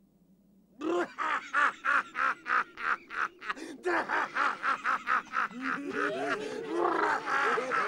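A man laughing loudly in quick rhythmic bursts, about three a second, starting after a second of silence; from about halfway in the laughter becomes denser and wavering, with overlapping voices.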